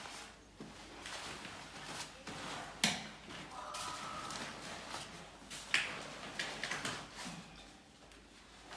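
A Roger Armstrong portacot's frame knocking and clicking, with its fabric rustling, as the cot is flipped upright and its legs are spread. Two sharp clicks stand out, about three and six seconds in.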